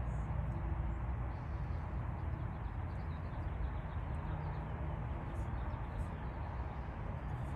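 Steady outdoor background noise, mostly a low rumble with a hiss over it, with a few faint high chirps now and then.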